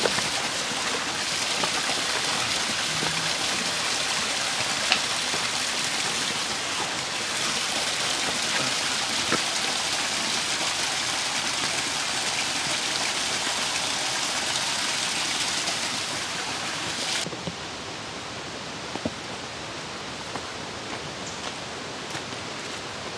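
Steady rushing water, a dense even hiss. About seventeen seconds in it drops abruptly to a quieter, duller hiss.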